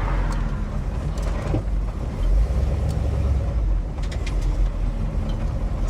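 1969 Shelby GT500's 428 Cobra Jet V8 rumbling while the car is driven, heard from inside the cabin, the low rumble swelling briefly around the middle.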